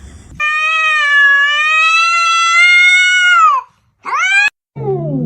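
A cat's long drawn-out meow lasting about three seconds, held fairly steady and dropping in pitch as it ends, followed after a short break by a brief rising meow. A lower pitched call with a falling start comes in near the end.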